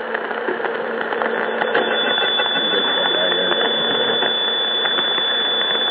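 CB radio hiss and static, with crackles, and a steady high-pitched whistle that comes in about two seconds in and holds.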